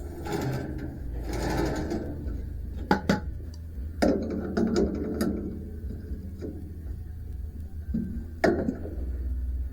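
Mechanical ratcheting and clicking of hand tools on metal, broken by several sharp knocks, over a steady low hum.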